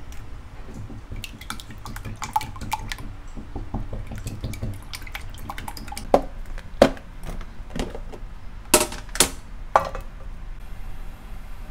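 Kitchenware clinking and knocking: light clicks through the first half, then five sharper knocks in the second half.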